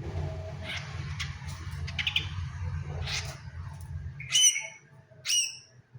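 Long-tailed shrike (cendet) giving two short harsh calls about a second apart near the end. Before them come scattered rustles and clicks over a low steady hum, which stops just before the first call.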